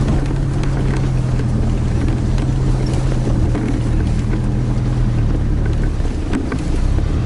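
Toyota Hilux engine running at low revs as the pickup crawls over rough off-road ground, a steady drone with scattered knocks and rattles. The engine note eases off about five seconds in and picks up again near the end.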